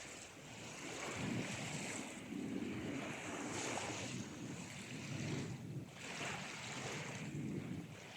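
Ocean surf, waves washing in and drawing back in repeated swells of rushing water.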